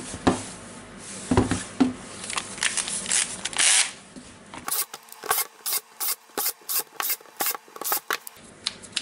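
Plastic drill housing being handled and closed up: scattered knocks and clicks and a short scrape, then, about halfway through, a run of evenly spaced sharp clicks, about three a second.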